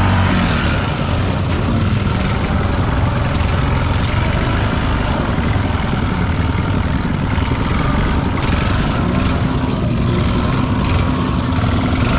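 ATV engine running steadily under a constant rushing noise, with no clear changes in pitch.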